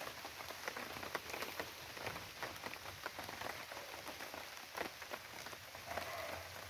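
Rain falling steadily, with many separate drops ticking onto surfaces.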